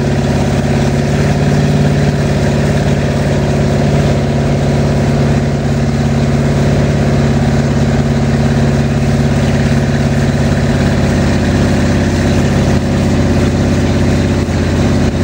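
Oldsmobile 455 V8 marine engine running steadily and loudly during its camshaft break-in, just after its first start.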